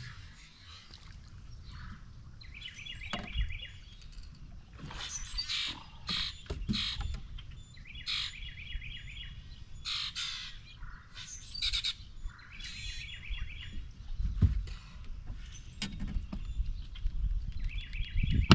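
Songbirds calling and singing, with repeated short trills and chirps, over a steady low rumble, and a few low thumps in the second half.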